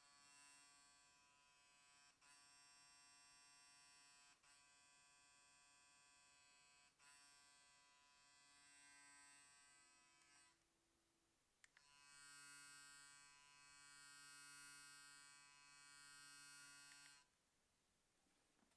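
Oral-B iO Series 3 electric toothbrush running with a faint, steady electric hum that briefly dips a few times. About ten seconds in it stops, then starts again about a second later, louder, and runs for about five seconds before switching off.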